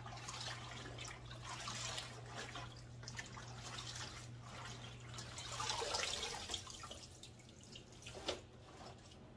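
Water sloshing and dripping as fresh collard greens are swished around in a pan of water in a sink and lifted out by the handful, leaves splashing and dripping.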